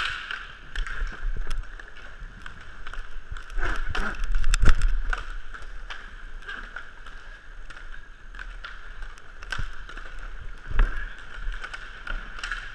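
Inline hockey play heard close up: inline skate wheels rolling and whirring on the court, with sharp clacks of sticks and puck throughout and heavier knocks about four and a half seconds in and near the end.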